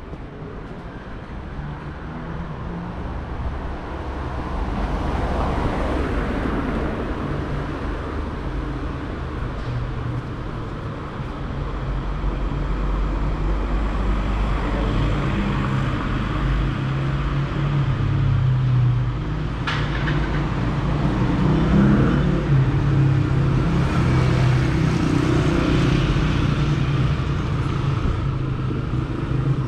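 City street traffic: cars and other motor vehicles driving past with engines running, growing louder through the second half. There is a single sharp click about twenty seconds in.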